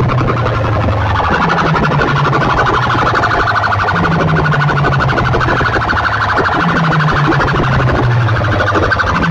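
Loud siren-like electronic effect track blasted through a sound-competition rig of horn loudspeakers: a fast-pulsing high wail over a low bass figure that steps between a few notes and repeats.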